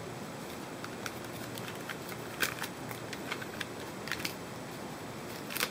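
Hands unwrapping a fabric GoPro head strap mount, pulling rubber bands off it: faint scattered clicks and rustles of handling, a few light ticks from about two seconds in.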